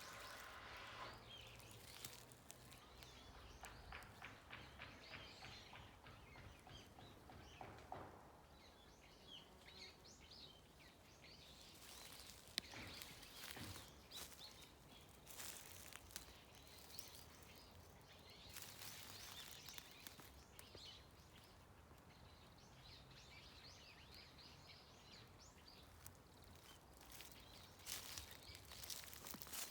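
Faint outdoor ambience with scattered distant bird chirps and occasional light clicks and rustles.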